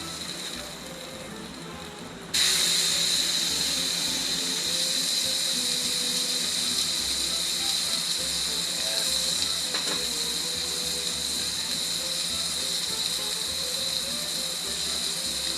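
Wagyu New York strip steak sizzling on a Blackstone flat-top griddle, a steady frying hiss that jumps abruptly louder about two seconds in.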